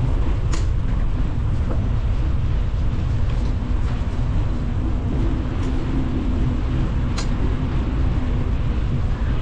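Steady low rumble of wheels rolling over a paved path, mixed with wind buffeting the microphone while riding, broken by two sharp ticks about half a second in and about seven seconds in.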